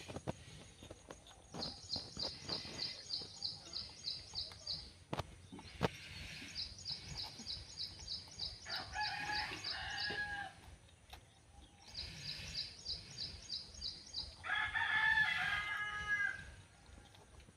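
A rooster crowing twice, about nine seconds in and again, louder, near the end. Under it, runs of high chirps repeat about five times a second for a few seconds at a time.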